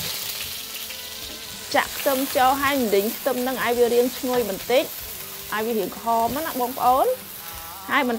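Chopped shallots sizzling in hot oil in a wok while a wooden spatula stirs them, a steady frying hiss as they start to soften. A woman's voice comes in over the sizzle about two seconds in and runs through most of the rest.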